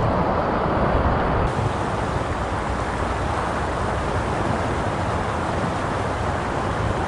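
Steady rushing of flowing creek water, a continuous even hiss that turns brighter about a second and a half in.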